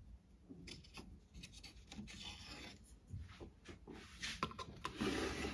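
Pencil scratching marks onto a thin plastic template strip, in short faint strokes. Near the end there is a louder, longer scrape.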